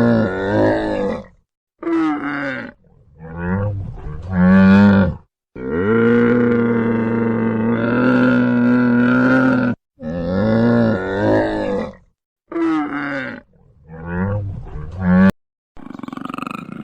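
A large animal calling: a series of short pitched grunting calls and one long, steady held call of about four seconds, the sequence then repeating.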